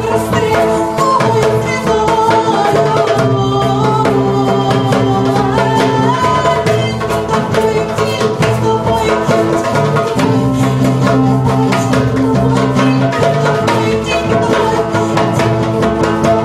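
Live acoustic folk music: a steel-string acoustic guitar strummed, a hand drum beaten in a steady rhythm, and a woman singing.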